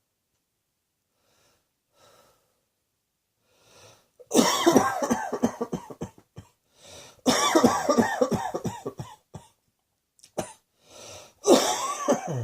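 A person coughing hard in fits. After a few faint breaths, a run of rapid coughs starts about four seconds in, another about seven seconds in, and shorter coughs come near the end, with quick breaths drawn in between.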